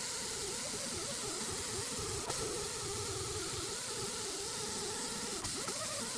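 Handheld die grinder with an abrasive wheel buffing the rubber of an 11.00-20 truck tyre sidewall around a tear, to prepare it for a patch. It runs steadily, its whine wavering in pitch as the wheel is pressed against the rubber.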